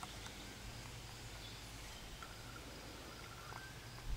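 Quiet outdoor background: faint bird chirps over a low steady rumble, with a soft brief sound just before the end.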